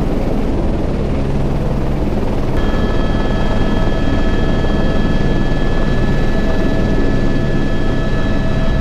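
Airbus H125 helicopter running in flight, a steady dense rotor and engine noise. About two and a half seconds in, the sound shifts to inside the cockpit, and several steady high whine tones ring over the rotor noise.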